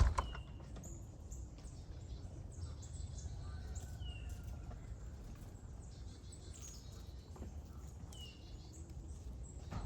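Backyard birds calling: a short falling whistle three times, about four seconds apart, among scattered high chirps, over a steady low rumble. A single sharp knock right at the start.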